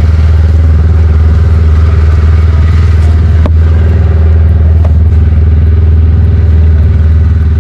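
Snowmobile engine running steadily at idle, loud and close, with a deep even hum and a couple of faint clicks.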